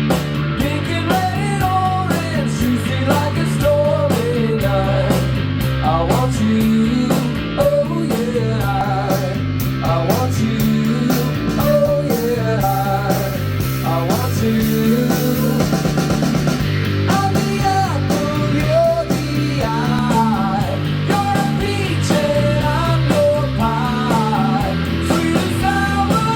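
A rock-style song with guitar and drums playing back through a hi-fi speaker, with a melodic lead line over a steady bass.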